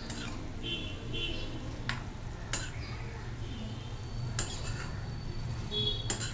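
Steel spoon stirring a thick brinjal curry in a steel kadhai, knocking against the pan about five times with sharp metallic clinks, some leaving a brief ring.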